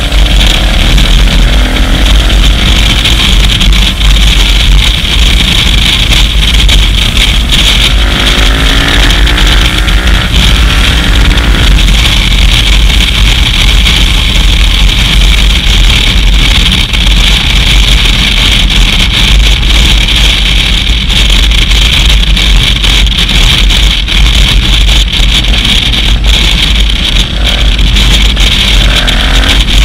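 Loud, distorted wind roar on a helmet- or bike-mounted action camera while riding a KTM 990 Adventure, its V-twin engine rising in pitch as it accelerates near the start, again from about eight to twelve seconds in, and near the end.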